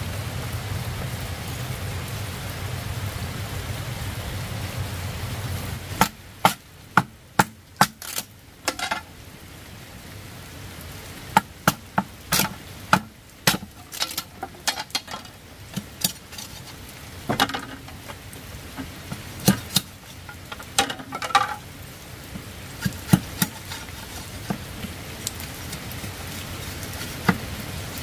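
A steady hiss for about six seconds, then a machete striking and splitting green bamboo into strips: sharp, irregular cracks and taps, some in quick clusters.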